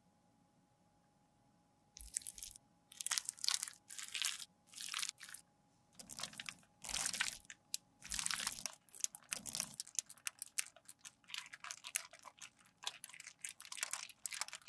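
Clear plastic film crinkling as it is handled and snipped with scissors, starting about two seconds in, then turning to quick dense crackling as the plastic is squeezed and kneaded around a lump of crushed red lipstick.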